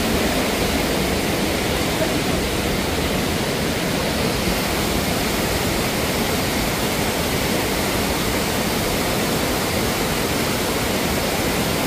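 Waterfall and its whitewater river rushing steadily.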